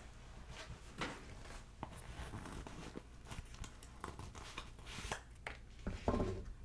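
Small objects being handled by hand: scattered light taps, clicks and rustles, with a louder brief knock about six seconds in.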